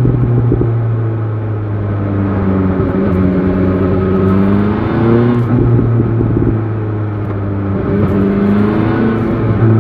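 BMW S1000 XR motorcycle engine running under way, its pitch rising and falling as the revs change, with wind buffeting on the microphone.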